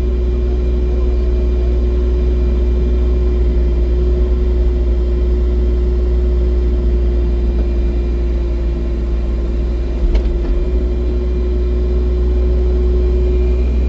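Excavator's diesel engine running steadily, a constant drone with a steady hum over it; a short knock about ten seconds in.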